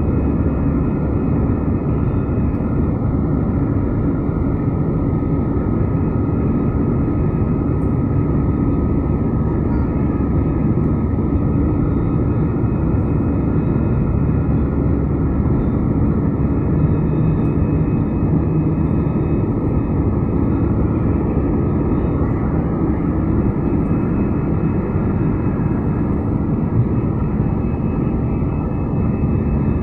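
Steady noise of an airliner's turbofan engines and the rushing air, heard from inside the passenger cabin during the climb after take-off.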